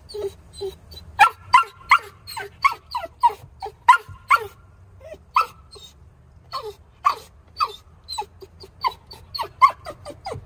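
A 5-month-old Australian Shepherd puppy shut in a crate, yipping and whining over and over in short, high cries that each fall in pitch, two or three a second with a couple of brief pauses. This is demand barking: her protest at not getting what she wants.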